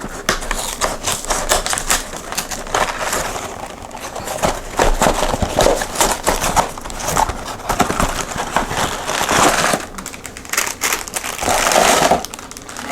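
A snack package of Lay's potato chips being handled and torn open: plastic and cardboard packaging crinkling and crackling in quick irregular bursts.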